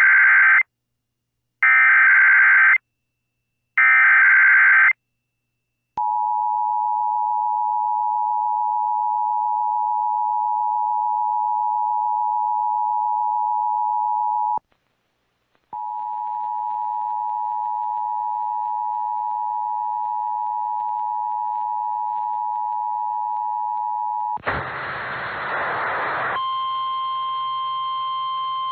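Emergency Alert System test alert: three short buzzy digital header bursts about a second apart, then the steady two-tone attention signal for about eight seconds. After a one-second break the attention tone starts again with extra fainter tones mixed in. Near the end a noisy burst of about two seconds gives way to a steady chord of several tones, an odd sound that does not belong in a normal alert.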